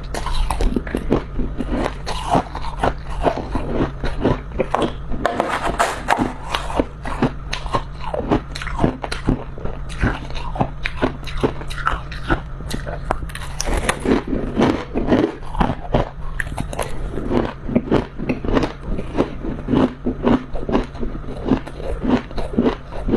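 Freezer frost, built up from humidifier moisture, being bitten and chewed close to the microphone: a rapid, irregular run of crisp crunches over a steady low hum.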